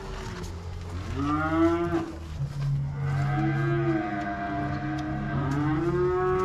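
Cattle mooing: three calls, a short one about a second in, then a long drawn-out one, then another near the end, over a steady low hum.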